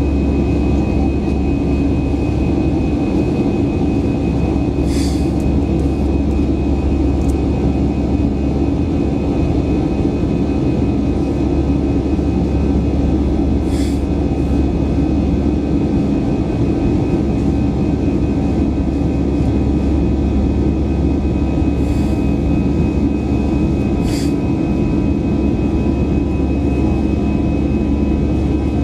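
Steady interior noise of an Airbus A320-200 with its jet engines running: a constant low rumble under a steady whine. There are a few faint clicks or rattles.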